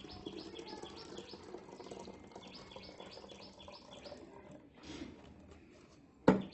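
Liquid trickling as it is poured from a plastic tub into a plastic pump-sprayer bottle, while a bird chirps repeatedly, about three chirps a second, until about four and a half seconds in. A sharp knock near the end.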